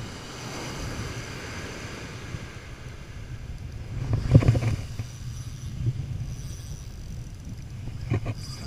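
Surf washing up the beach with wind buffeting the microphone, and a brief louder knock and rustle about four seconds in.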